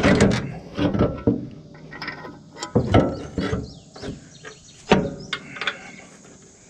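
Steel parts knocking and scraping together as the adjustable foot on a mower-conditioner's cutting head is pushed and wiggled to line up a bolt hole: a string of irregular metallic knocks with short scrapes between them.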